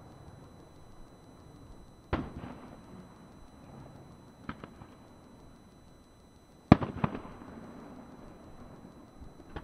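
Aerial fireworks shells bursting one at a time, a few seconds apart: single sharp bangs and one double crack, each trailing off in a rumble. The loudest burst comes about two-thirds of the way through, followed at once by a couple of smaller cracks.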